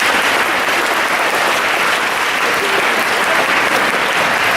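Audience applauding steadily, a dense unbroken clapping of many hands.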